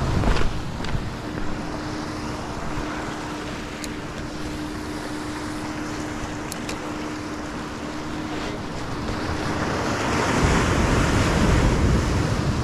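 Small waves surging and washing over jetty rocks, with wind on the microphone and a faint steady hum; a bigger wash builds about ten seconds in. A few light clicks come through.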